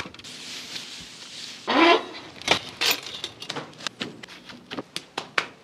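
Gloved hands handling raw brisket and working dry rub onto it: a run of sharp, irregular slaps and taps, with a short rising sound about two seconds in.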